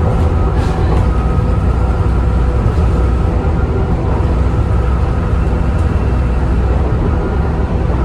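Volvo B7TL double-decker bus heard from inside while under way: its six-cylinder diesel engine runs with a steady low drone, and its cooling fans blare with a steady whine over it.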